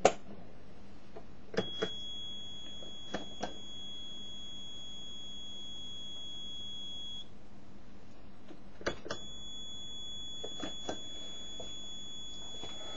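The small speaker in a homemade Arduino Uno game-show buzzer sounds a steady, high-pitched electronic beep. It holds for about five and a half seconds, stops, then sounds again for about five seconds near the end. A few sharp clicks and knocks come with it, the loudest just as it starts.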